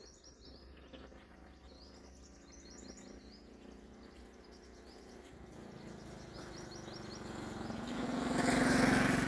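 Sunbird chirping in quick runs of high notes, three short series. From about six seconds in, a motorbike engine comes closer and grows louder, loudest near the end.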